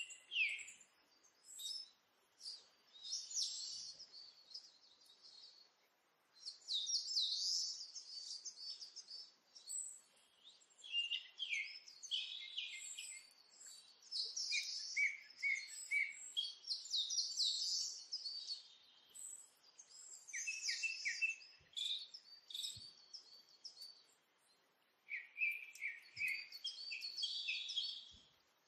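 Small birds chirping and twittering in repeated bursts of quick, high calls, with short gaps between the bursts.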